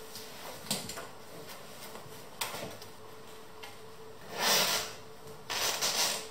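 Fabric cover being pulled and stretched over a rocking chair's metal-framed cushion: cloth rubbing and swishing, with two longer, louder swishes in the second half.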